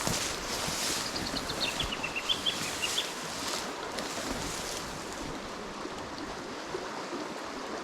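River water flowing over stones, with gusts of wind on the microphone in the first few seconds. About a second in, a bird calls a quick run of short high notes that step down in pitch and then climb again.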